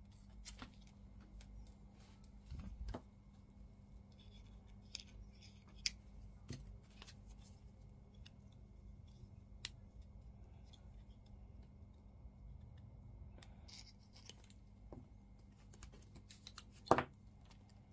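Scattered light clicks and taps of plastic model-kit parts being handled and fitted together, with a louder cluster of sharp clicks near the end, over a faint steady hum.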